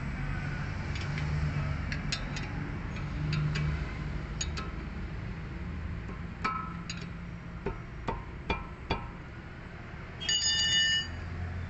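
Sharp metallic clicks of a wrench working the guide-pin bolt of a 2007 Mazda6's rear brake caliper, scattered through the first nine seconds over a low steady hum. About ten seconds in comes a short electronic tone of several pitches at once, the loudest sound, lasting under a second.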